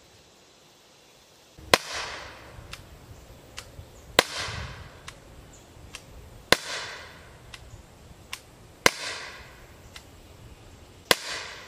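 Umarex TR50 .50-calibre CO2 revolver firing Devastator rounds: five sharp shots about two and a half seconds apart, each trailing off briefly. Softer clicks come between the shots.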